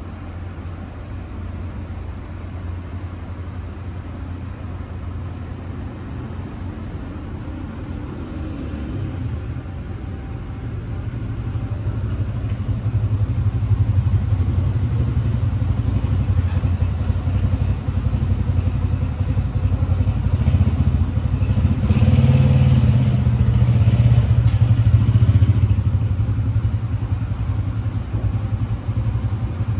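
A kitten purring steadily, a low rapid rumble close to the microphone that grows louder about halfway through.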